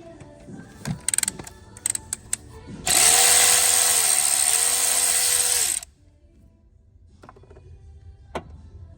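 A cordless power tool spins for about three seconds, its motor pitch dipping briefly in the middle before it stops suddenly, as bolts are run out during alternator removal. Clicks and knocks of tools being handled come before and after it.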